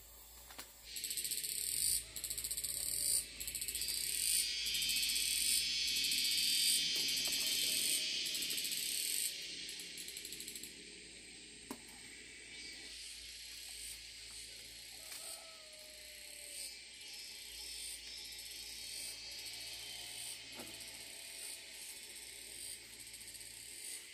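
Insects calling in a high, shrill pattern that repeats about once a second. It is louder for the first nine seconds or so, then goes on more softly.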